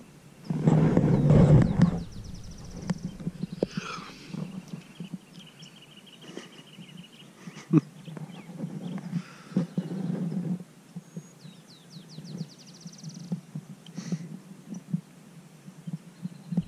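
A person's drawn-out, non-speech vocal noise, like a sleepy yawn, about a second in, with softer ones later. Songbirds trill in the background.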